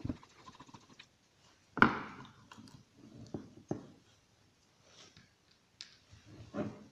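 Scattered small clicks and knocks of a Honda distributor's cylinder position sensor and its wiring being handled and lifted out of the distributor housing, with one louder knock about two seconds in.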